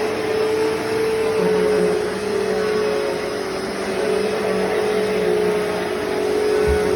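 Hoover Deluxe Elite Rewind vacuum cleaner running steadily while vacuuming, its motor giving a constant whine. There is a brief low bump near the end.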